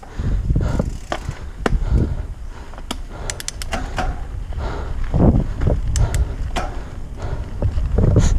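Mountain bike descending a dirt singletrack: a low rumble of tyres and wind buffeting on the camera's microphone that surges and falls, with frequent sharp clicks and rattles from the bike over bumps.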